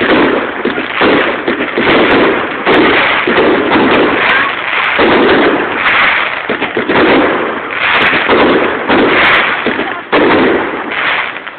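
Aerial fireworks going off in quick succession: loud bangs about once a second with crackling between them.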